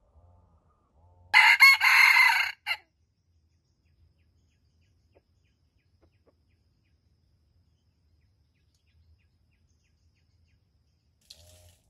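Red junglefowl rooster crowing once, a short, loud crow lasting about a second and a half, starting just over a second in.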